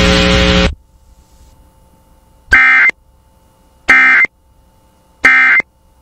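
A loud buzzy alert tone cuts off under a second in. Then come three short, identical, screechy data bursts about a second apart: the Emergency Alert System's SAME end-of-message code closing the tornado watch broadcast.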